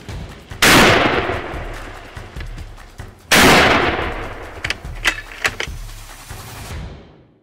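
Two heavy big-game rifle shots from a .500 Nitro Express, about two and a half seconds apart, each a loud crack followed by a long rolling echo. A few short, sharp knocks follow about a second and a half after the second shot.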